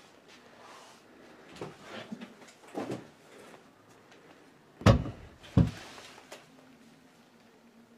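A series of knocks and thumps: several softer ones early on, then two loud sharp bangs a little under a second apart near the middle, and a weaker knock after them.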